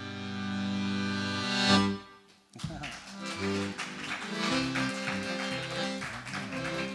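Piano accordion holding a sustained chord that ends in a short, loud accent about two seconds in. After half a second of silence the accordion starts a lively new tune, melody over pulsing bass chords.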